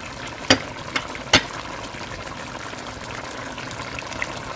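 Crab curry in coconut milk simmering in a stainless pot, a steady bubbling hiss, with three sharp clicks in the first second and a half.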